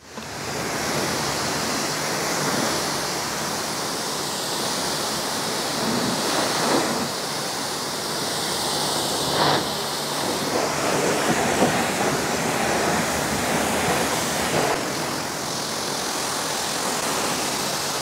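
High-pressure water jet from a BTALI 4 HP commercial pressure washer spraying onto a car's windscreen and body panels, rinsing off shampoo foam: a steady hissing rush.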